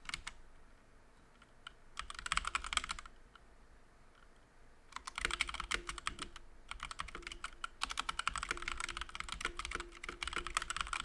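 Computer keyboard typing in quick runs of keystrokes: a short run about two seconds in, then a longer stretch of rapid typing from about five seconds on.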